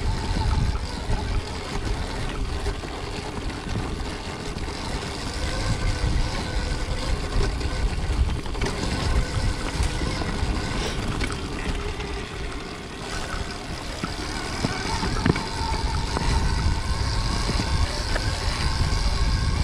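Stark Varg electric dirt bike being ridden, its motor's faint whine rising and falling under heavy wind buffeting on the rider's microphone.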